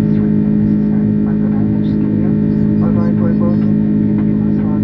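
Steady, loud cabin drone of an Airbus A330 airliner, dominated by a strong, unchanging low hum. Faint voices can be heard near the middle.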